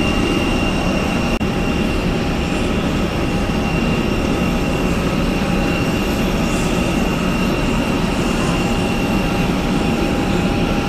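Steady airliner noise heard from inside the cabin: an even rush of engine and air noise with a few faint constant tones running through it.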